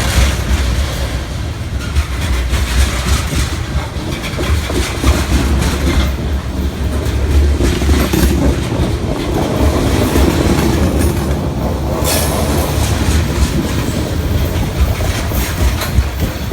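Freight train cars rolling past, their wheels clacking over the rail joints over a steady low rumble, with the clacks coming thicker near the end.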